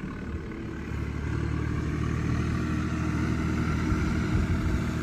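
An engine running steadily, growing a little louder about a second in.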